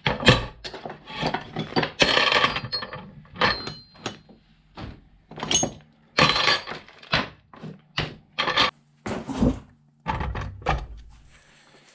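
Metal parts and tools being handled: a busy series of knocks, clatters and clinks, some ringing briefly.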